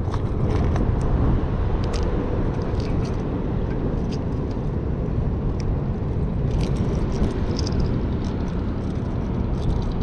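Steady low rumble of outdoor background noise, with a few faint light clicks of fishing lures and treble hooks being handled over a plastic tackle box.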